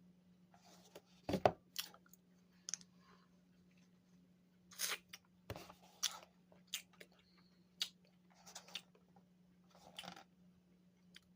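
Someone biting and chewing a frozen strawberry fruit bar, a series of short, irregular crunching and mouth sounds.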